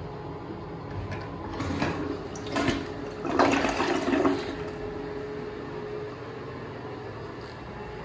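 WaterRidge one-piece dual-flush toilet flushing: a rush of water starts about a second and a half in and swells for a few seconds, then eases into a quieter steady running sound as it settles.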